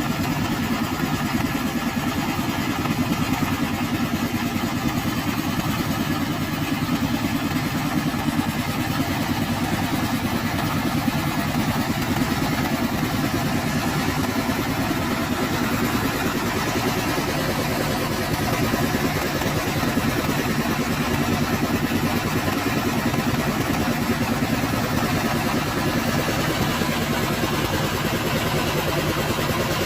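Portable water-well drilling rig's 22 HP diesel engine running steadily at a constant speed.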